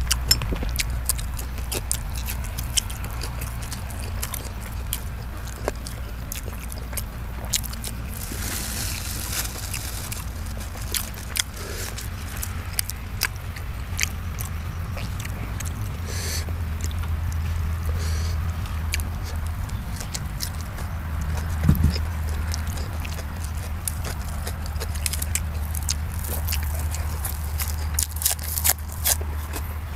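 Close-up chewing and mouth sounds of a person eating sausage: irregular wet clicks and smacks, with a few louder bites near the middle and toward the end, over a steady low rumble.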